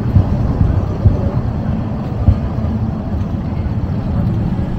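Wind buffeting the microphone: a low, uneven rumble with a few sharper thumps, over a seaside street's ambience.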